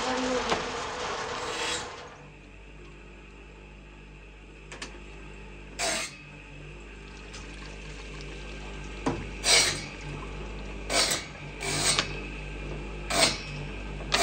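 Bunches of thin painted wooden ruler strips clattering as they are handled and stood upright in stacks: a run of short knocks and rattles, several of them in the second half. A loud steady mechanical running noise cuts off about two seconds in.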